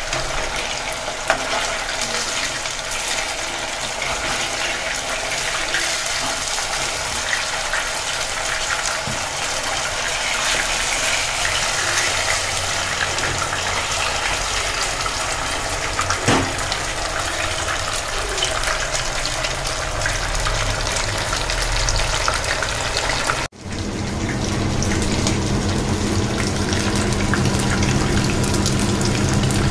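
Fish pieces deep-frying in hot groundnut oil: a steady sizzle with scattered crackles. It breaks off abruptly about 23 seconds in, and the sizzle resumes with a low steady hum underneath.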